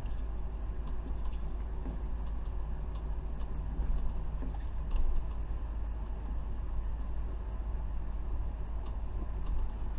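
Class A motorhome's engine and road noise heard from inside the cab while it rolls slowly: a steady low rumble, with a couple of light knocks about four and five seconds in.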